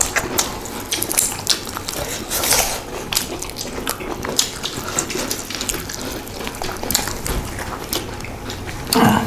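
Close-up eating sounds of several people chewing and lip-smacking as they eat rice and pork curry with their hands: many short, wet clicks and smacks. A brief voiced sound comes near the end.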